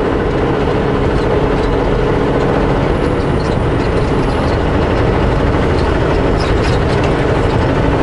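Steady cab noise of a semi truck driving at highway speed on a snow-covered road: diesel engine drone mixed with tyre and road noise. A faint steady tone fades out about three seconds in.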